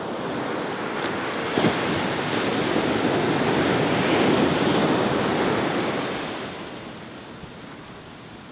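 Surf breaking on a beach: a wave rushes in, swells to its loudest midway and then drains away, with wind buffeting the microphone. A brief click sounds about one and a half seconds in.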